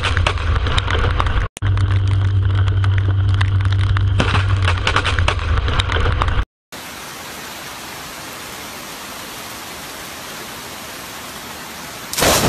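Heavy rain with a steady low hum underneath and sharp taps of drops hitting close by. After a brief cut, a quieter steady rain hiss, then near the end a sudden loud crack of a close lightning strike.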